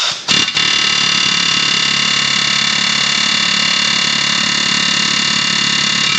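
Pneumatic air hammer hammering steadily and rapidly on a steering knuckle against a seized lower ball joint. After a couple of short blips it runs without a break and stops sharply at the end.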